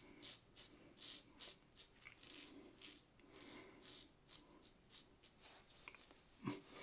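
Merkur 37C slant-bar safety razor with a Derby double-edge blade scraping stubble through shaving cream in short, faint strokes, about two a second. A soft knock near the end.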